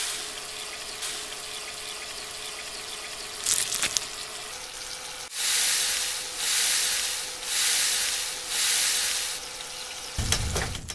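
Pasta, tomatoes and asparagus sizzling in a frying pan on a portable gas stove. The sizzle swells four times, about a second each, as a wooden spoon stirs the food. Near the end there are a few clicks as the stove's knob is turned.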